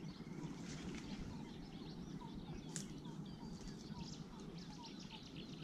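Many birds chirping and calling faintly, with one short call repeating every few tenths of a second, over a steady low rumble.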